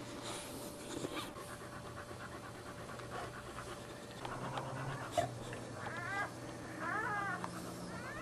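Boxer dog panting quickly and steadily, with three short whining cries near the end.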